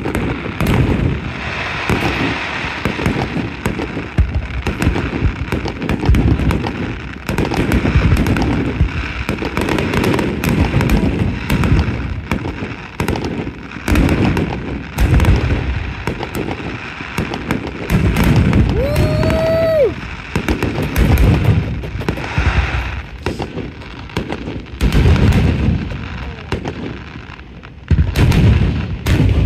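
Aerial fireworks bursting overhead in rapid succession: a continuous run of loud bangs with crackling between them, and one short whistling tone about two-thirds of the way through.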